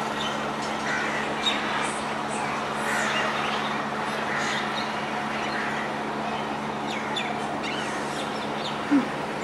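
Birds chirping and calling in short scattered notes over a steady low hum, with one brief louder sound near the end.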